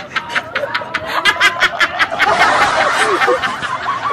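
Young women laughing in rapid, even bursts of giggles. About two seconds in the laughter grows louder and more tangled, as if several are laughing at once.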